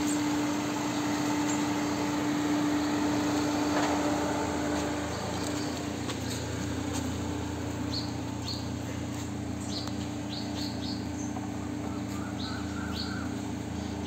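Birds chirping in short, quick calls, scattered through the second half, over a steady low hum.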